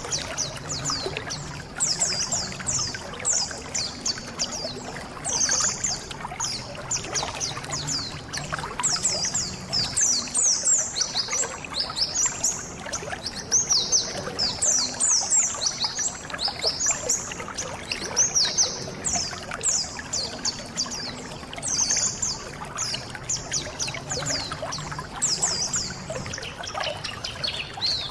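A flock of white-eyes (pleci) calling and chattering together in rapid, high, thin chirps that overlap without pause, over a steady trickle of running water.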